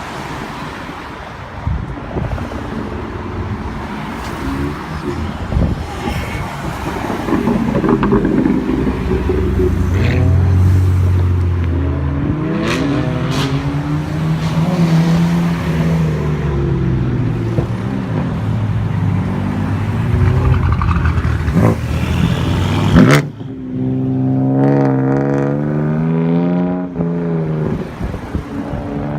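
Exhausts of Manhart-tuned BMW M cars, engines revving and accelerating with pitch rising and falling over and over, broken by a few sharp cracks. After a loud crack about three quarters of the way in, a cleaner single engine note holds and then rises.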